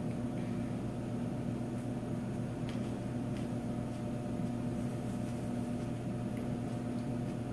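Steady low mechanical hum with a couple of faint clicks a few seconds in.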